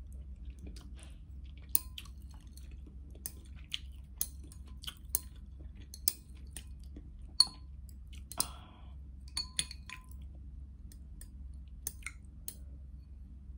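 Close, wet chewing and mouth clicks of someone eating noodles in soup, with metal chopsticks clinking against a glass bowl several times; the sharpest clink comes a little past halfway. A steady low hum runs underneath.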